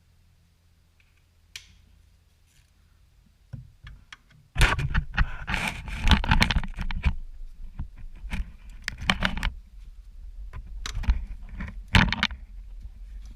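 Hand tools and metal parts clinking, rattling and scraping in bursts, with heavy thuds, during work on a car's engine bay. The first few seconds are nearly quiet apart from a faint hum and a couple of light clicks.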